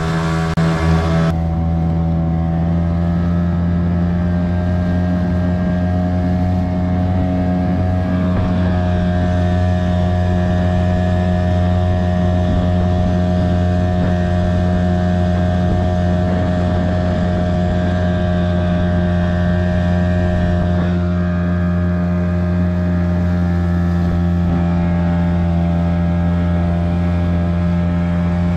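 Hangkai 6 hp two-stroke outboard motor running under way at speed, a loud steady drone that holds its pitch. A hiss over it drops away about a second in.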